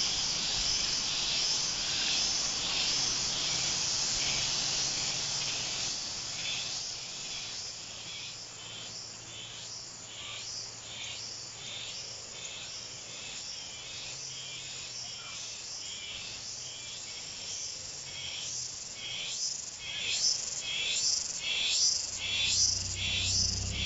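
Insects calling in the orchard: a continuous high shrill that about a quarter of the way in breaks into a pulsing rhythm of roughly two pulses a second, growing louder near the end.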